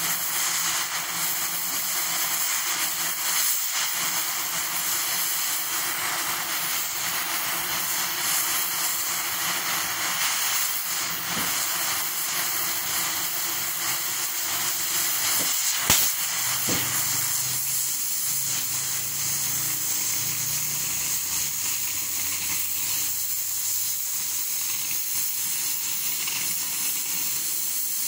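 Oxy-fuel cutting torch flame hissing steadily as it preheats a thick steel plate, with a single sharp click about two-thirds of the way through.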